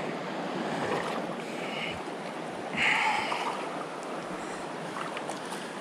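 Steady rush of a shallow river riffle washing over rocks, with a brief louder swish about three seconds in.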